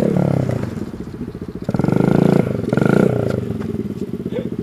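Minibike's small single-cylinder engine revving up and falling off in bursts, then settling into a steady, lower putter near the end.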